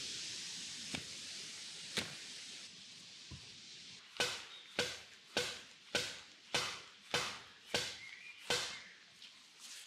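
Wood being chopped by hand: two single blows about a second apart, then a steady run of eight chopping strokes, roughly two every second.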